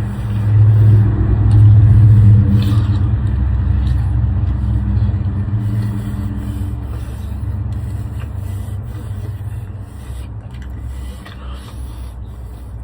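A motor vehicle's engine rumbling low, swelling to its loudest in the first two seconds and then fading slowly.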